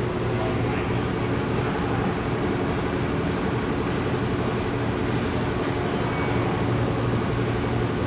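Steady background noise of a large retail store: an even low hum and hiss, with a faint steady tone.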